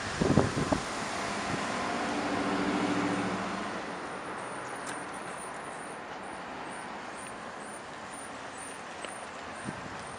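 A few sharp knocks in the first second, then a motor vehicle passing on the street: its engine hum swells to a peak a few seconds in and fades into steady traffic noise.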